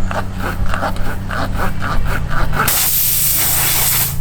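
A tire reaming tool rasping in and out of a screw puncture in a car tire, about four strokes a second. About two and a half seconds in, air starts hissing loudly out of the reamed hole.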